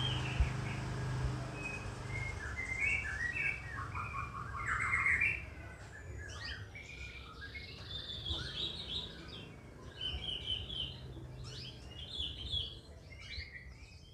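Small songbirds chirping and twittering, many short high calls overlapping, loudest about five seconds in. A low steady hum sits under them for the first couple of seconds.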